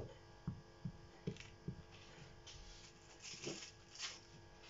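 A spoon dabbing and tapping fresh goat cheese onto a sheet of puff pastry on the table: about five soft knocks in the first two seconds. This is followed by brief rustling of a plastic wrapper a little after three and four seconds in, over a steady electrical hum.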